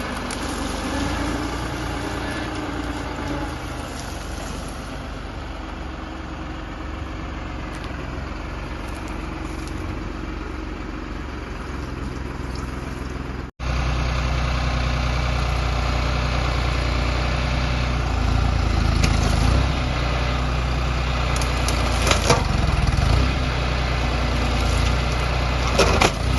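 Heavy machine's diesel engine running steadily. It cuts off abruptly about halfway and comes back louder, with a few sharp cracks near the end.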